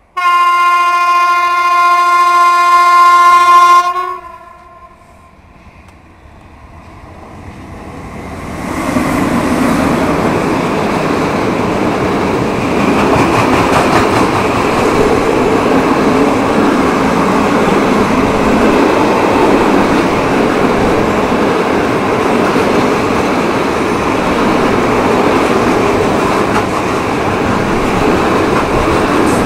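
Train horn sounding one steady blast of about four seconds, then the train drawing near and passing with a loud, steady rumble of wheels on rails.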